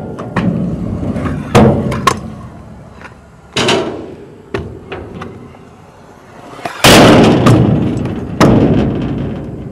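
Stunt scooter wheels rolling over skatepark ramps, with several sharp clacks as the scooter lands or hits the ramp. The loudest, about seven seconds in, is followed by a loud rush of rolling.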